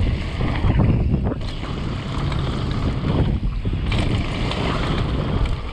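Wind buffeting the microphone at riding speed, with mountain bike tyres rolling over loose gravel and occasional short clatters from the bike.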